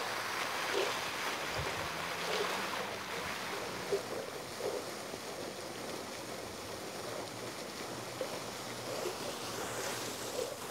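Water fountain splashing into its basin: a steady rush of falling water with small splashes in it.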